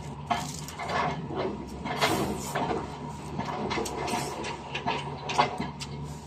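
Irregular light clatter of dishes and utensils being handled, over a steady low hum.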